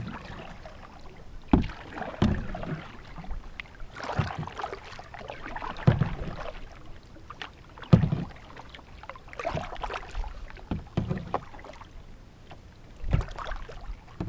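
Canoe paddling: paddle strokes dipping and splashing in the water every second or two, with a few sharp knocks.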